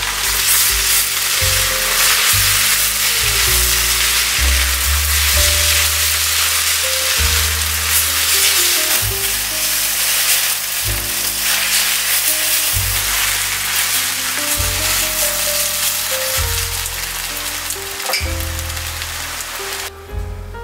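Egg noodles, chives and vegetables sizzling in hot oil in a wok as they are stir-fried with a spatula, a steady hiss that cuts off near the end. Background music plays underneath.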